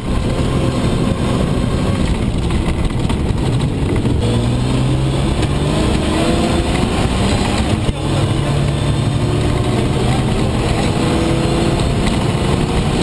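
Steyr-Puch Pinzgauer's engine heard from inside the cab, pulling hard and rising in pitch, with a short break about eight seconds in before it pulls again. Steady road and rattle noise sits under it.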